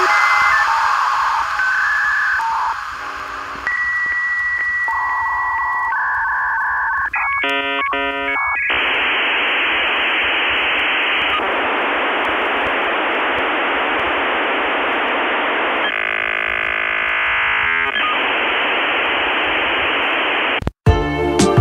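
Electronic telephone-line tones stepping between steady pitches, then rapid switching patterns, then a long even hiss, in the pattern of a dial-up modem connecting. It cuts off abruptly near the end.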